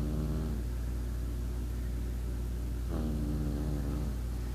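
A sleeping young child snoring: one snore trails off about half a second in, and another comes about three seconds in and lasts about a second, each a low buzzing breath. A steady low hum runs underneath.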